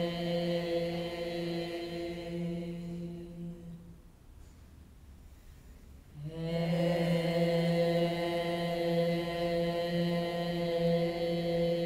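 A woman's voice chanting a long held tone into a microphone, one steady pitch. It fades out about four seconds in, and after a pause for breath a second long tone begins at the same pitch and holds.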